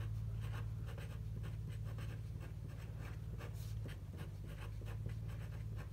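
Pen writing on paper: short, irregular scratching strokes as figures are written out, over a steady low electrical hum.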